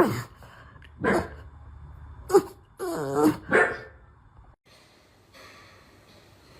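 Dog barking, about five short barks and yelps in the first four seconds, the first falling in pitch, then quieter.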